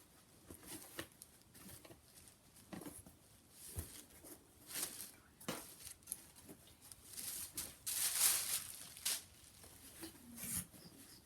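Cotton T-shirts being handled and moved one after another, fabric rustling in short, irregular strokes, busiest about eight seconds in.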